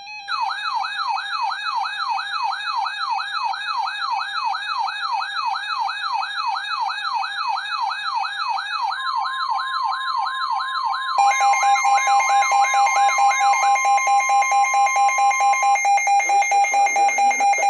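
Electronic alert sounds: a fast warbling siren that sweeps up and down two or three times a second, joined about halfway by a steady tone near 1 kHz, the NOAA Weather Radio warning alarm tone. From about two-thirds of the way in, a rapid pulsing alarm beeps about six times a second, and a voice begins near the end.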